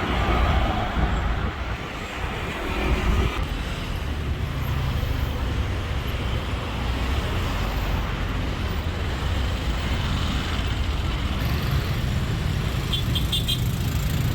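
Motor vehicle traffic: a steady low engine hum and road noise, with a rumble that is loudest in the first few seconds.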